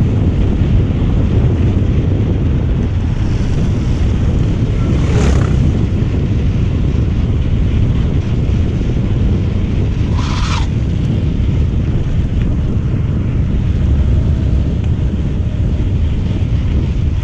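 Heavy wind buffeting the microphone of a mountain bike speeding down a steep descent, a steady low rumble. Two brief, higher-pitched sounds cut through it, about five and ten seconds in.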